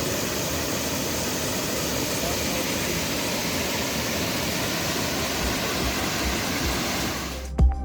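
Waterfall's steady rushing roar of falling water. Music with sharp plucked notes comes in near the end.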